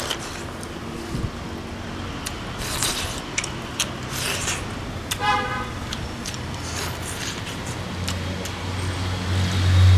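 Eating noises from someone shovelling rice and stew from a bowl with chopsticks: short slurps, chewing and chopstick clicks. A brief horn-like toot sounds about five seconds in, and a low engine drone swells near the end and becomes the loudest sound.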